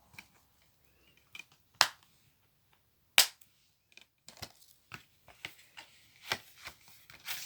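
Plastic Blu-ray case being handled, with clicks and snaps. Two sharp, loud snaps come about a second and a half apart, then a run of smaller clicks.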